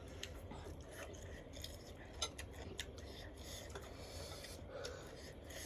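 Faint clinks and scrapes of spoons against noodle bowls while eating, with a few short, sharp ticks scattered through.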